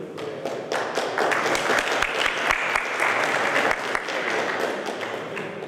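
Audience applauding, swelling about a second in and thinning out near the end.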